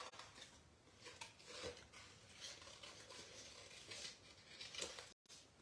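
Near silence, with a few faint taps and rustles of paper and crafting pieces being handled on a work table.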